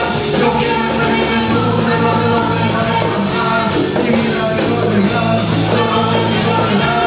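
A live church band plays an upbeat song with a steady beat, and a man sings into a microphone over it.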